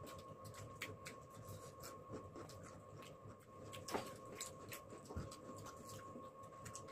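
Faint eating sounds: scattered small clicks and mouth noises of people eating spicy Maggi noodles by hand and with a spoon, over a faint steady hum.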